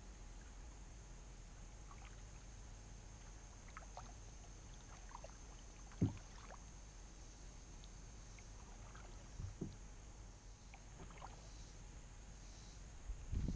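Quiet kayak paddling: water dripping and splashing off the paddle in scattered strokes, with one sharp knock about six seconds in and more splashing near the end.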